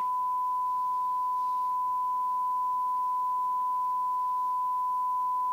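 Steady 1 kHz sine test tone from a small Motorola Golden Voice loudspeaker, a single pure pitch held without change, measuring about 70 dB on the sound level meters one metre away.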